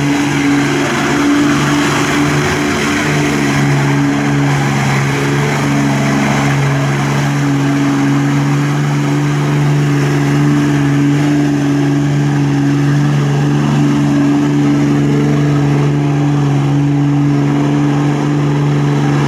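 Lifted mud truck's engine running hard at steady revs while churning through a mud pit, its pitch holding nearly constant.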